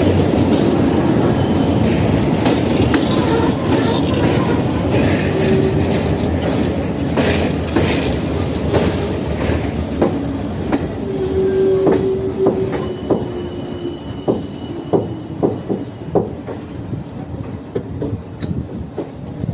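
Passenger train running on the rails, a dense rumble that gradually eases off. The wheels squeal briefly about halfway through, and sharp clacks over the rail joints stand out in the second half.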